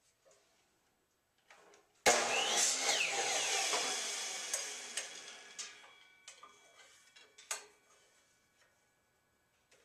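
Bosch compound miter saw cutting wood: the motor and blade start suddenly about two seconds in, then die away over about four seconds. A few sharp knocks of wood pieces being handled on the saw table follow.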